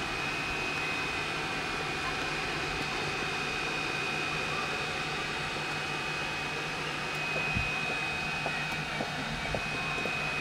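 Steady machine hum and whir with a constant high-pitched whine over it, unchanging throughout, with a few faint ticks near the end.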